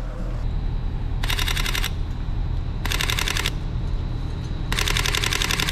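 Camera shutter firing in continuous burst mode: three bursts of rapid, evenly spaced clicks, about a second apart, over a steady low rumble.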